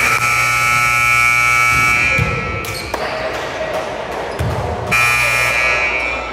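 Gymnasium scoreboard buzzer sounding twice: one long blast of about two seconds, then a shorter blast about five seconds in, with gym noise between them.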